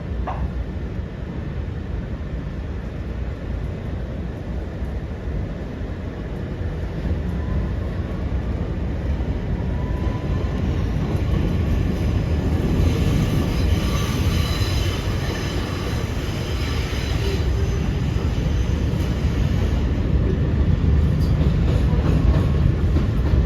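Kawasaki R211A subway car running along the track, heard from inside: a steady low rumble of wheels on rail. A faint rising whine comes in about ten seconds in, followed by a few seconds of higher-pitched hiss with faint squealing tones. The rumble grows louder toward the end.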